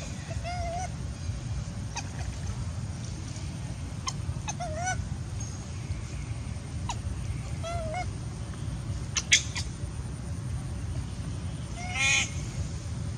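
Baby long-tailed macaque giving short, squeaky, wavering whimpers every few seconds, with a louder, longer cry near the end. A few sharp clicks fall between the calls, one of them the loudest sound of all.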